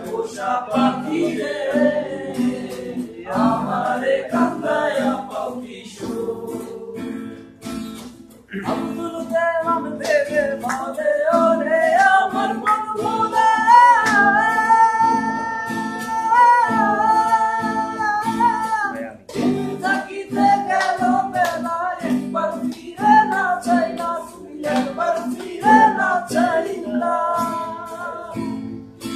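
A man singing a Bengali song while strumming an acoustic guitar, his voice holding one long high note from about twelve to nineteen seconds in.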